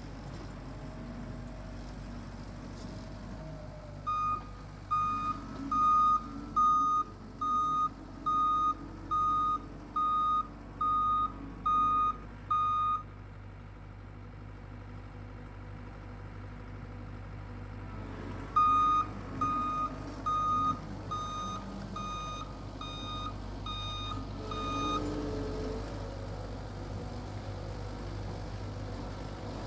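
Machine's reversing alarm beeping at an even pace, a little faster than one beep a second: a run of about eleven beeps, a pause, then about eight more, over the steady running of the engine working the power rake.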